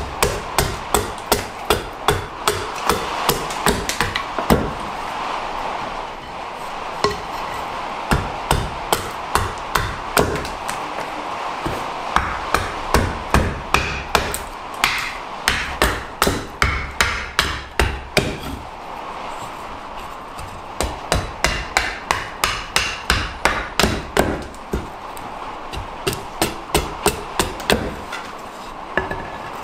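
Small carving axe chopping into a green-wood blank on a wooden chopping block: runs of sharp chops at about three a second, with a couple of short pauses between runs.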